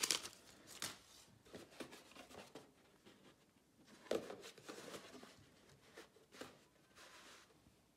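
Paper sheet rustling and crinkling as it is folded in the hands, then a cardboard box being picked up and set down on a cloth-covered table, with light knocks and a short scrape. The handling of the box about four seconds in is the loudest sound.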